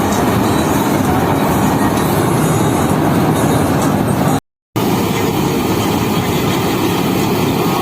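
Paddy harvesting machine running steadily under load as it cuts the crop: a loud, even engine-and-machinery noise. The sound breaks off completely for a split second a little past halfway, then resumes.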